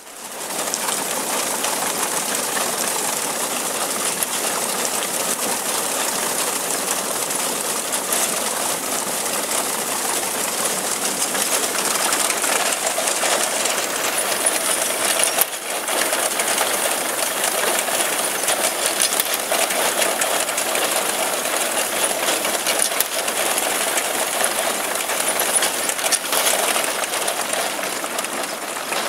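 Tractor-drawn reaper-binder at work cutting and binding a cereal crop: a steady, fast mechanical clatter of the binder's moving parts over the tractor engine running, with a steady whine joining about halfway through.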